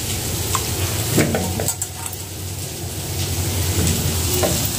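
Cut radish pieces swished by hand in water in a steel bowl: steady splashing and sloshing, with a few light knocks of the pieces against the bowl.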